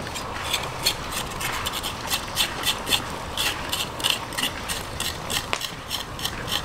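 Knife scraping a raw cow's foot on a wooden cutting board, short rasping strokes about three a second.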